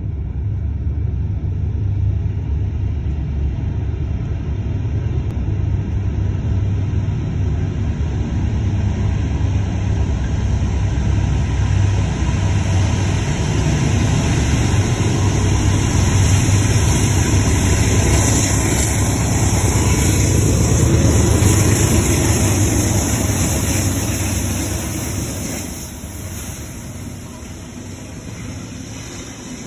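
Freight train with diesel locomotives approaching and passing: a deep engine rumble builds for about twenty seconds, then drops sharply near the end as the locomotives go by. The double-stacked container cars follow with a lower, steady rolling rumble.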